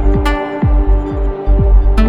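Electronic background music with a steady beat: a deep kick drum about every 0.4 s under held synth tones and light ticking cymbals.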